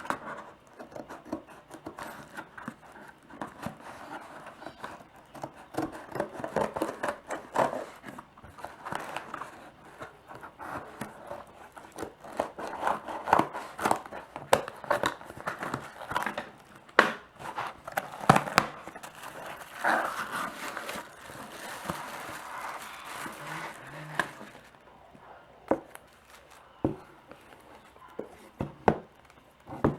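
Phone box packaging being handled and opened: crinkling and tearing of plastic wrap, and scraping of cardboard. Sharp clicks and taps are scattered throughout, and it grows quieter after about 25 seconds.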